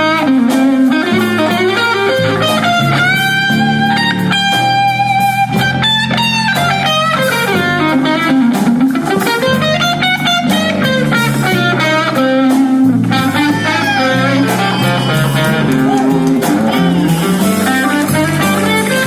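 Live blues band playing, with an electric guitar leading in bent, sliding notes over a steady low accompaniment.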